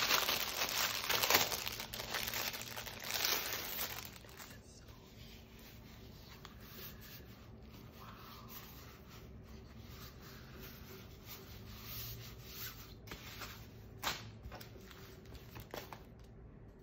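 Clear plastic packaging crinkling and rustling as it is handled, loudest in the first four seconds. Then fainter rustles and handling sounds follow, with a sharp tap about fourteen seconds in.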